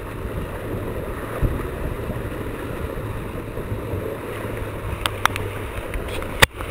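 Wind buffeting the microphone and water rushing along the hull of a small sailboat under way at speed. A few sharp clicks come about five seconds in, and a louder click follows just before the end.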